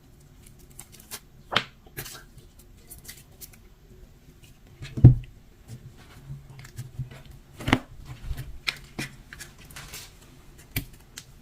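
Hands squishing and stretching butter slime, giving irregular sticky clicks and crackles, with two louder squelching thumps about five and seven and a half seconds in.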